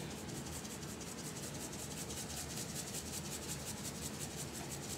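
Dried parsley flakes being sprinkled by hand into a glass measuring cup: a faint, even rustling with several quick strokes a second.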